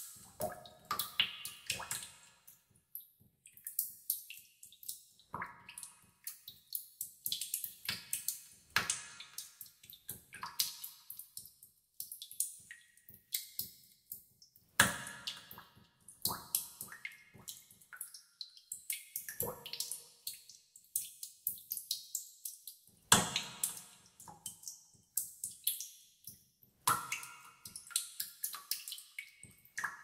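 Water dripping in a cave: many drops falling at an irregular pace, several a second, each plink trailing off in echo, with a few louder drips standing out.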